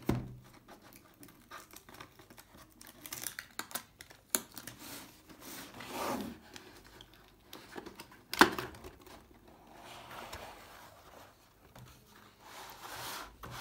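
Cardboard box being handled and opened: rustling, scraping and crinkling of cardboard and packaging, with a few sharp knocks, the loudest about eight seconds in.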